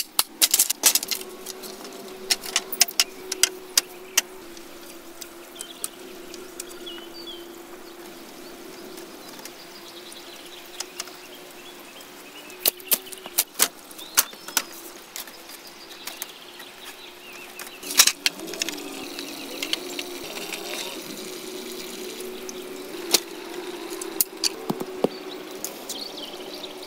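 Sharp knocks of a machete chopping a green bamboo pole, in a quick run at first and then scattered, with clattering as split bamboo slats are handled and laid down. A steady faint drone runs underneath.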